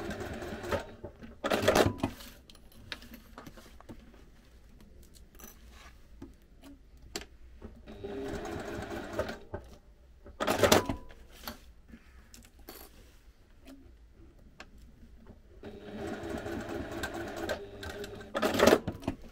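Domestic sewing machine stitching in three short runs, basting the pleats of clear vinyl near the edge. A brief, louder noise follows each run.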